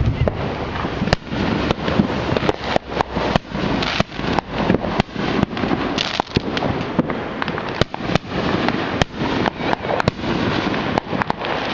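Barrage of fireworks going off continuously: a dense crackling with many sharp bangs, several a second.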